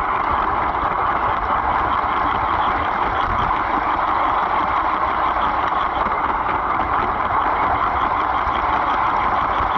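LEGO train running along its track, heard from a camera riding inside a passenger car: a steady whirring rattle of the electric motor and plastic wheels that holds even throughout.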